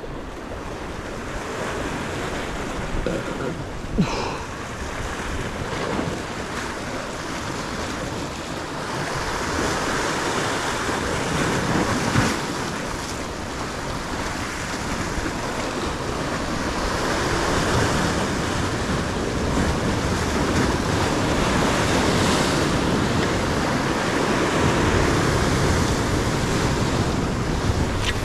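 Sea surf washing against a rocky shore, swelling and easing, with wind buffeting the microphone. There are a couple of sharp clicks, one about four seconds in and another near the middle.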